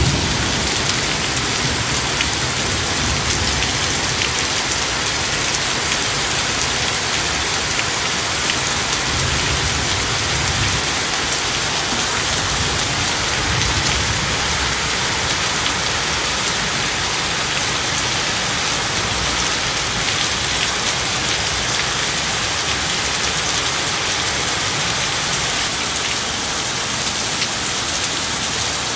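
Torrential rain pouring down onto a street, a steady dense hiss of drops hitting the pavement, with a few low rumbles in the first half.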